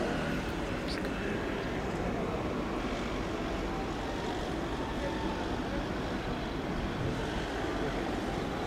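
Steady drone of the eight-cylinder English Electric diesel engine of a CP 1400-class locomotive, running without change.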